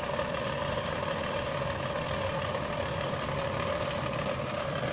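Steady mechanical drone with a constant mid-pitched hum, unchanging throughout.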